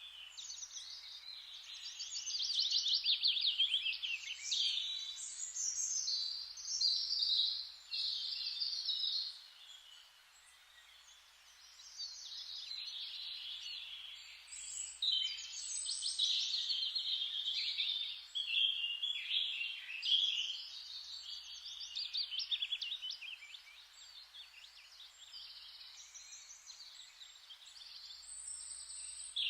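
Birdsong: several small birds chirping and trilling in quick, overlapping phrases, with a quieter lull about ten seconds in.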